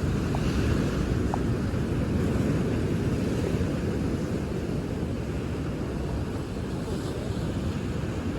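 Steady low rumble of wind buffeting the microphone, mixed with the wash of sea waves on the shore.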